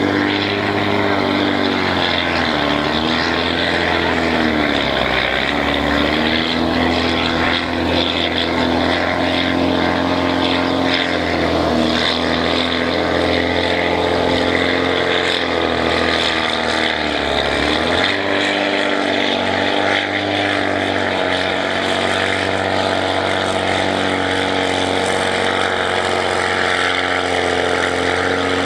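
Farm tractor's diesel engine pulling hard under the load of a weight-transfer sled. Its pitch sags about four times as the load drags the revs down, each time picking back up.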